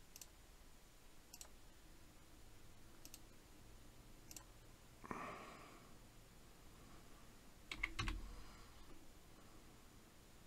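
Sparse single computer mouse clicks, then a quick run of keyboard keystrokes about eight seconds in, over a quiet room; a soft brief rustle just after five seconds.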